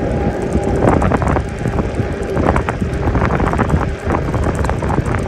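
Wind buffeting the microphone on a moving e-bike, with a faint steady whine that fades about four seconds in and a scatter of short rattling clicks.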